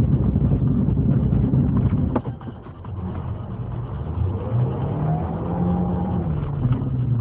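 Car engine and road noise heard from inside a car on a snowy road, with one sharp knock about two seconds in. In the second half an engine note rises and then holds steady.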